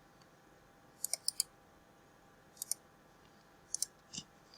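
Short, sharp clicks from working a computer, in small groups: a quick run of four about a second in, then two pairs a little over a second apart, and a single click near the end.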